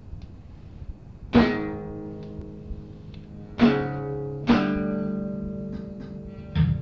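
Guitar chords struck one at a time and left to ring out: the first about a second and a half in, two more close together near the middle, and another just before the end, with faint plucks in between. A low rumble sits underneath before the first chord.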